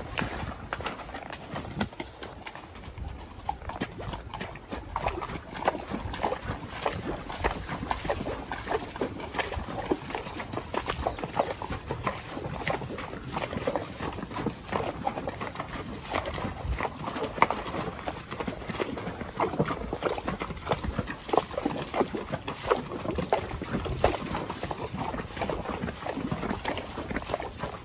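Horse hooves walking through a shallow, rocky creek: an uneven run of splashes and hoof clops on stones.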